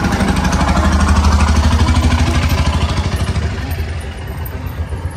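A motorcycle engine running as it passes in street traffic, growing louder to a peak about a second in, then fading away after about three seconds.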